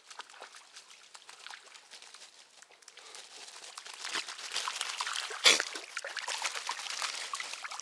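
Small dogs, among them a Cavalier King Charles spaniel, running and wading through a shallow forest stream, their paws splashing the water and rustling wet leaves. The splashing picks up after about three seconds, with one sharp, louder splash about five and a half seconds in.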